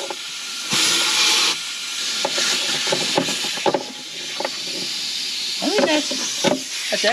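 Compressed air hissing from an air-hose nozzle blown into the cowl and fresh air grate of a Ford Raptor to clear out clogging leaves, with a louder blast about a second in and scattered small clicks and knocks.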